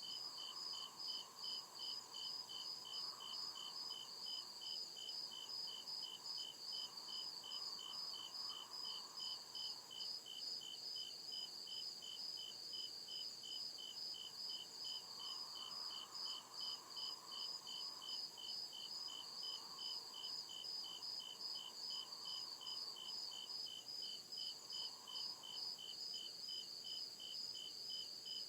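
Crickets chirping steadily in an even rhythm, about two chirps a second, with two callers at different pitches, one higher than the other.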